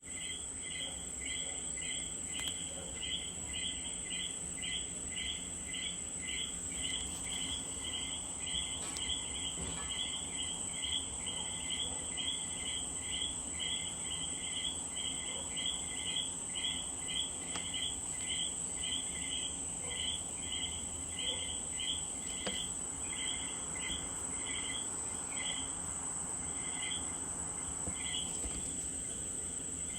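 Common coqui frogs calling their two-note "co-quí", many calls overlapping at roughly two a second, over a steady high-pitched buzz.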